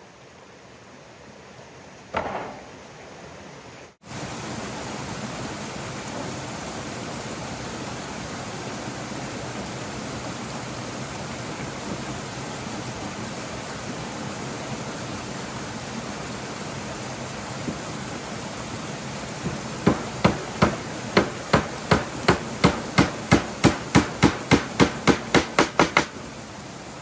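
A steady rushing noise runs through, and about two-thirds of the way in a fast run of hammer blows starts, about three to four strikes a second for some six seconds, then stops.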